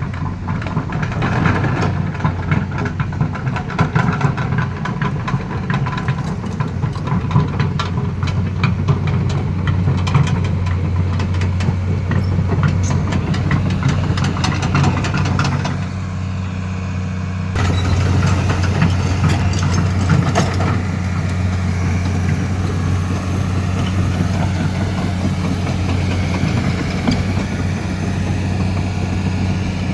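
Komatsu PC210 excavator's diesel engine running steadily at a low drone, with many short knocks and clatters through the first half and a brief dip in level about sixteen seconds in.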